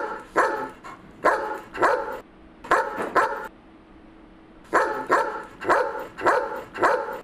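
A dog barking repeatedly: two pairs of loud barks, a pause of about a second, then a run of about five barks.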